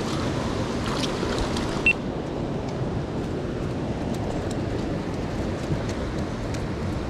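Steady rush of a clear mountain river flowing over boulders, with a few faint ticks and one short high squeak just before two seconds in.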